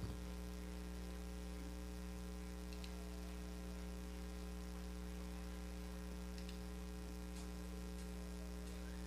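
Steady low electrical mains hum, with nothing else heard over it.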